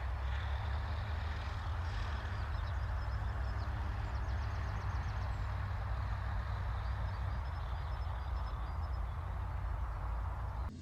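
Steady low rumble with an even hiss over it, in the manner of vehicle or traffic ambience, with faint high chirps scattered through it. It cuts off abruptly at the end.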